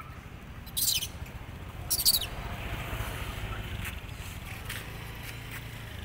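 Birds chirping in the background, with two short, sharp high-pitched sounds about one and two seconds in, over a low steady rumble.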